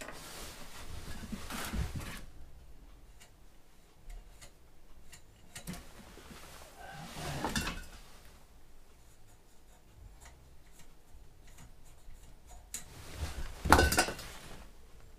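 Metal clunks, scrapes and rattles from parts being handled on a steel welding cart, in three main bouts, with the loudest clatter near the end and small clicks between.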